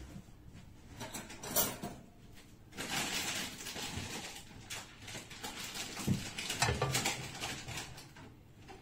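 Cooking oil heating in a nonstick frying pan on a gas stove, crackling and spitting irregularly as it comes up to frying temperature. The crackle is thickest in the middle few seconds.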